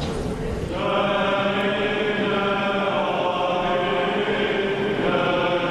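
Liturgical chanting: voices holding long, steady notes, coming in about a second in.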